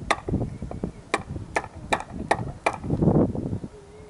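A small screwdriver pressing and clicking against the plunger of a cleaned hydraulic lifter: about six sharp metal clicks in three seconds, with duller handling knocks and a rustle between them. The plunger is being worked to check that it moves freely.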